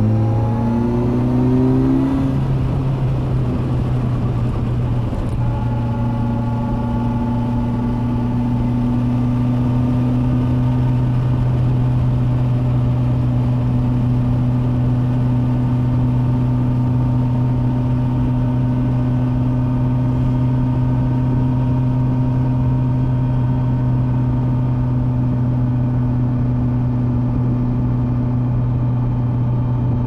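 Kawasaki Versys 1000 SE's liquid-cooled 1,043 cc inline-four engine rising in pitch as it pulls for about two seconds, then running at a steady engine speed from about six seconds in.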